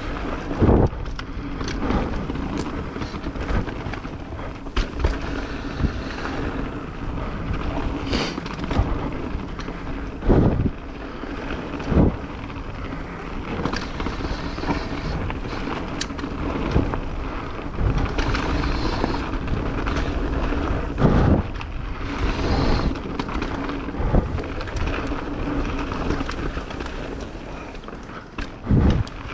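Mountain bike riding fast down a rough dirt trail: steady wind noise on the microphone and tyre rumble, broken every few seconds by sharp knocks and rattles as the bike hits bumps.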